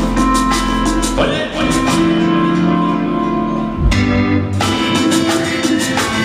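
Cumbia music played loudly over a dance-hall sound system, with a steady percussion rhythm. The percussion drops out for about two seconds midway and comes back near the end.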